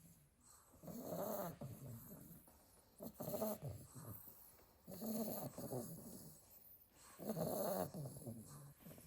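Sleeping Staffordshire bull terrier puppy snoring, four snores about two seconds apart.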